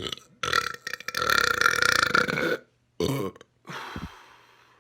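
A man burping loudly: one long, drawn-out burp of about two seconds, then a short second burp about three seconds in, trailing off into a breathy noise.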